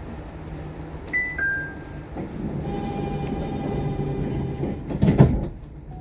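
Nippori-Toneri Liner car at a station: a two-note door chime, then the sliding doors running shut with a steady hum, closing with a loud thud about five seconds in.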